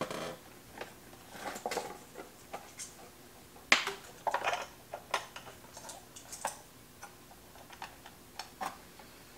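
Irregular light clicks, taps and rustling from test leads and connectors being handled and hooked up to a frequency counter. The sharpest click comes a little under four seconds in.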